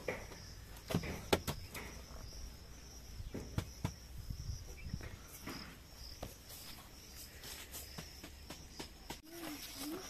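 Insects chirring as a steady, even high-pitched drone. Scattered light clicks and knocks fall over it, most of them in the first four seconds.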